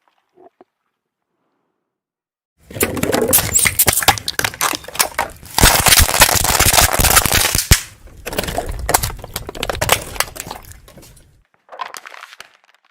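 Crunchy objects crackling and snapping as a car tyre rolls over and crushes them: a dense run of sharp cracks over a low rumble, starting a few seconds in and loudest in the middle, then a brief second burst near the end.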